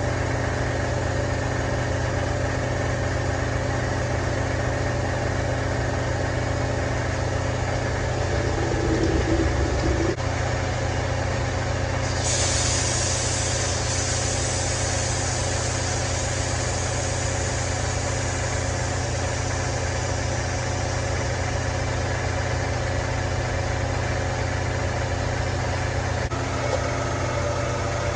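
A steady low mechanical hum runs throughout. Halfway through, a loud high hiss starts suddenly and fades away over several seconds.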